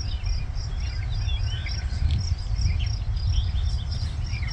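Field ambience: an insect chirping in an even rhythm of about three pulses a second, with birds chirping now and then, over a steady low rumble.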